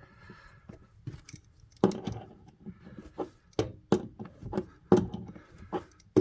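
Irregular clicks and knocks from hand-threading a toilet supply line's coupling nut onto a compression shut-off valve, with the loudest knocks about two seconds in and again near the end.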